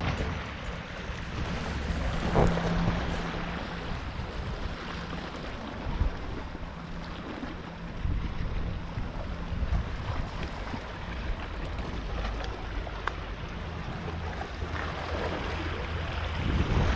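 Steady wind noise on the microphone outdoors, a constant low rumble and hiss.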